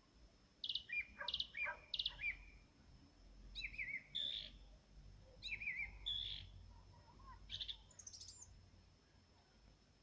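Nightingale singing four short song phrases with pauses between them, each made of quickly repeated notes; the last phrase ends in a run of very high notes.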